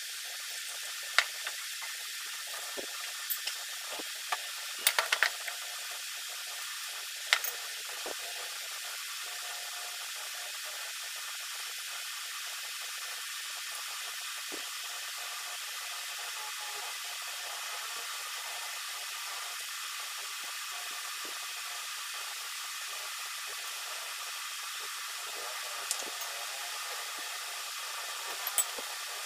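Steady hiss of background noise. A handful of sharp clinks from metal tongs, a spoon and a knife against ceramic bowls come in the first several seconds, with a quick cluster about five seconds in, and a couple more near the end.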